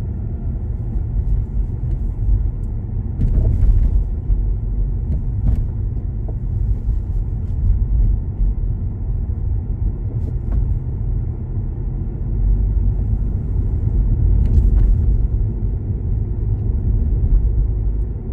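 A car driving slowly on residential streets: a steady low rumble of tyre and engine noise, with a few faint clicks or knocks.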